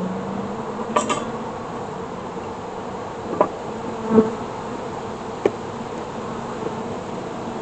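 Honeybees buzzing steadily around an open hive, with a few light knocks about one, three and a half, four and five and a half seconds in.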